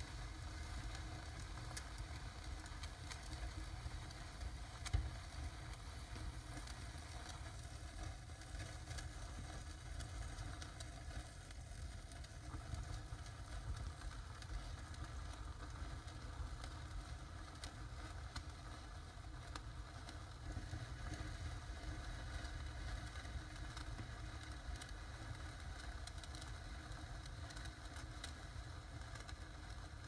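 Fountain fireworks burning: a steady rushing hiss of spraying sparks with scattered crackles, and one sharp pop about five seconds in.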